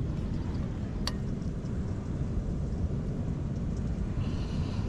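Wind rumbling steadily on the microphone, with a single sharp click about a second in.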